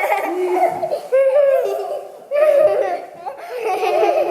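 Young children laughing and squealing in several bouts.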